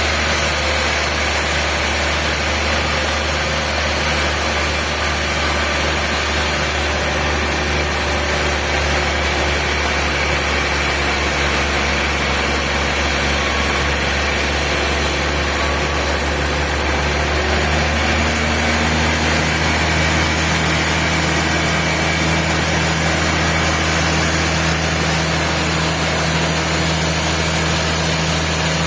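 Sawmill machinery running steadily: a constant engine-like drone with a low hum, its tone shifting slightly about seventeen seconds in.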